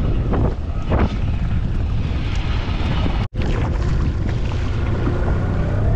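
Helicopter flying overhead, its rotor and engine noise mixed with wind rumble on the microphone. The sound cuts out for an instant a little over three seconds in, then carries on.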